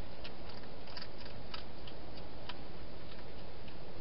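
Wild hedgehog eating: irregular sharp crunching clicks as it chews dry food at a dish, over a steady hiss.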